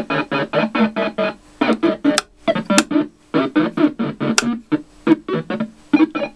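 Homemade lunetta-style logic synth, the Photophonobservotron MK2, sounding buzzy organ-like tones that are switched on and off by an external gate signal. The result is a rhythm of quick pulses, about five a second, in groups with short gaps and changing pitches. A few thin high whistling tones come in around the middle.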